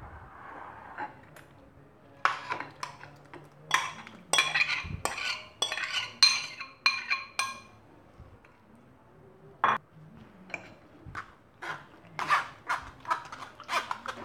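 Glass bowl and steel spoon clinking and scraping against a steel mesh strainer as wet tamarind pulp is poured in and pressed through. A run of clinks in the middle, one sharp knock later, then quicker, rhythmic clinks near the end as the spoon works the pulp against the mesh.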